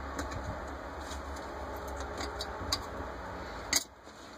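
Light clicks and taps of metal carburetor parts being handled during a Rochester Quadrajet teardown, over a steady background hiss. A sharper click comes a little before the end, and the hiss then drops away suddenly.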